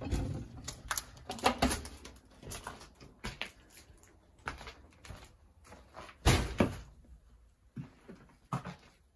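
Footsteps and irregular knocks and scrapes on a floor littered with debris and broken plaster, with the loudest knocks about a second and a half in and a little after six seconds.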